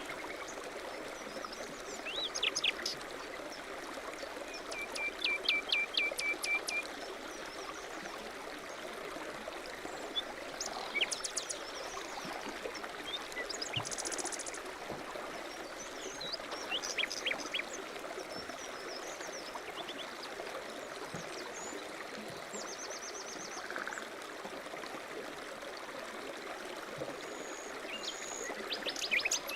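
Steady rushing of a mountain stream, with songbirds calling over it: a quick run of repeated chirps a few seconds in, then scattered trills and short calls.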